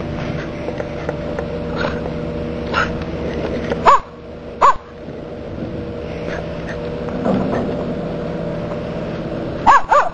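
Small dog barking sharply four times, a pair about four seconds in and another pair near the end, over the steady hum of the ferry's engine.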